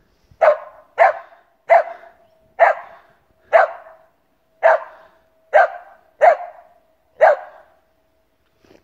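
A Samoyed barking in play: nine sharp barks, about one a second.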